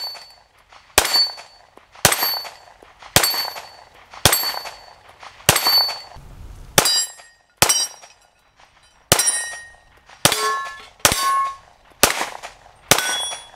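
A 9mm Springfield Armory striker-fired pistol fired about a dozen times at a steady pace, roughly one shot a second. Many shots are followed by the brief ring of steel targets being hit.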